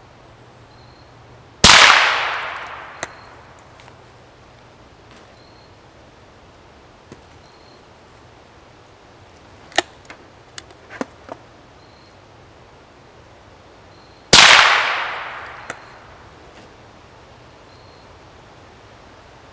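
.22 LR rifle with a homemade rebar barrel firing Federal rounds: two shots about twelve seconds apart, each followed by a long echo through the woods. Between the shots come a handful of sharp metallic clicks as the spent case is extracted and the next round loaded.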